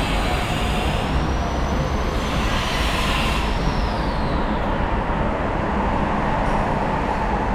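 Steady rumble of passing vehicles, with a thin high whine that rises slightly and then falls away during the first half.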